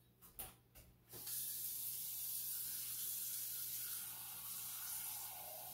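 Kitchen tap running water into a stainless steel pot, a steady hiss starting about a second in, its tone shifting lower toward the end as water gathers in the pot, filling the bottom of a double boiler.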